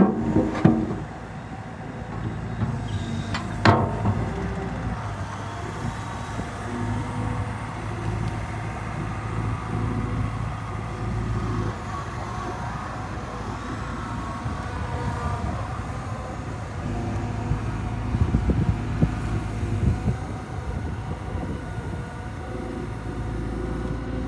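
Caterpillar M315D wheeled excavator's diesel engine running while the hydraulics work the boom and tiltrotator bucket, the engine note rising and easing with the load. A few sharp knocks come at the start and again about four seconds in.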